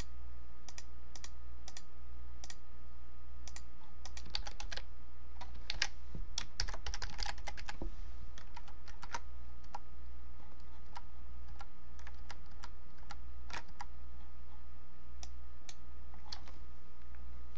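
Computer keyboard typing: scattered keystrokes, with a quick run of typing about four to eight seconds in, over a steady low hum.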